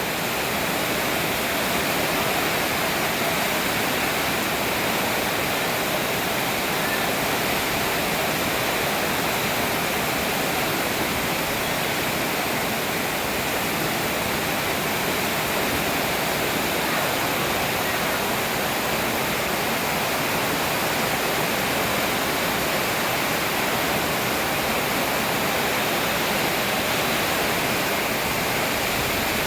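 Heavy storm rain pouring down as a steady, even hiss.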